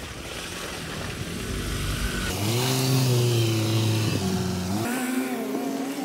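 A motor vehicle engine running with a steady pitch that shifts abruptly twice, after a couple of seconds of even hiss.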